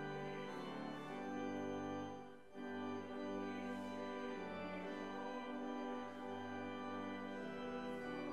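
Church organ playing a hymn accompaniment in held chords, with a short break between phrases about two and a half seconds in.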